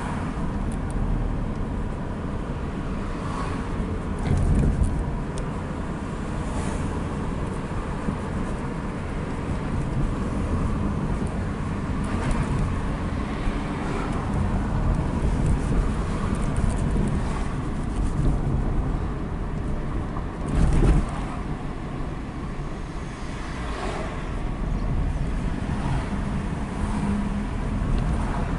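Nissan Primera driving in town traffic, its engine and road noise heard from inside the cabin as a steady low rumble. Two brief louder bumps come about four and a half seconds in and again about twenty-one seconds in.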